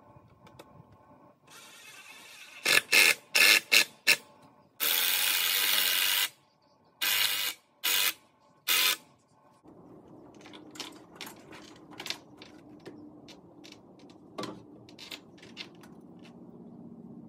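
Cordless drill/driver driving screws into a wooden frame: several short bursts, one longer run of about a second and a half, then three more short bursts. After that, faint scattered clicks and taps.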